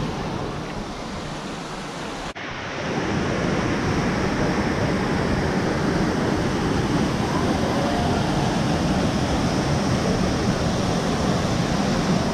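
A small waterfall splashing steadily into its plunge pool, a continuous rushing of water. A brief dropout about two seconds in, after which the rushing is louder and fuller.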